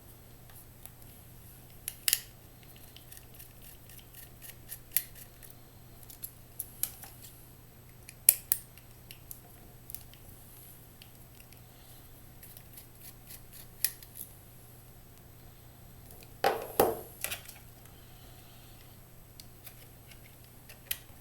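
Scattered small clicks and metallic taps from a screwdriver, tiny screws and a metal hard-drive bracket being handled, with a short louder cluster of clatter about three-quarters of the way through.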